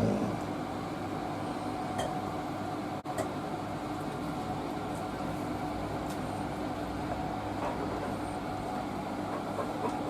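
A steady machine hum with a constant tone under it and a few faint ticks.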